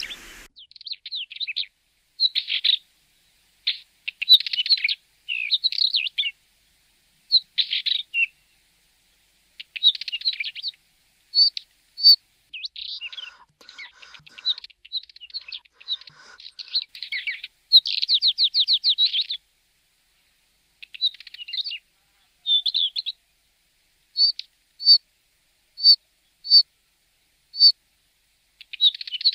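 Northern wheatear singing: short, scratchy warbling phrases with pauses between them, then near the end a run of brief single notes about two-thirds of a second apart.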